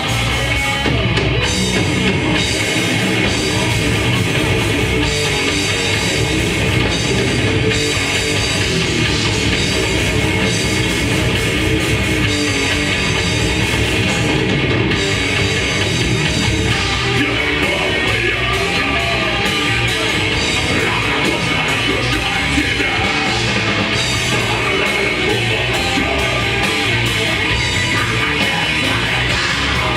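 A death metal band playing live: heavily distorted electric guitars and a pounding drum kit in a dense, loud, unbroken wall of sound.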